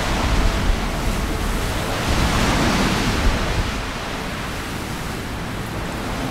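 Desert sandstorm wind: a steady rushing noise of wind and blowing sand, swelling about two to three seconds in and easing slightly after.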